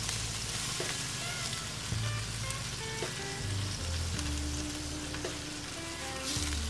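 Pork ribs sizzling on a hot charcoal barrel grill as a thin barbecue sauce is brushed on, a steady hiss with quiet background music.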